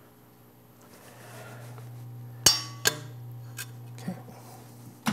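Metal clanks and clinks from a sheet metal brake and the sheet metal part being worked in it: one sharp clank about halfway through, a second just after, then a few lighter knocks.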